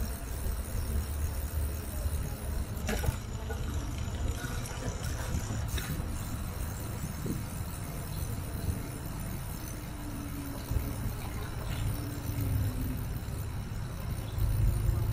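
Wind buffeting the microphone and a bicycle's tyres rolling along a paved cycle track, a steady low rumble that grows louder near the end, with a couple of sharp clicks.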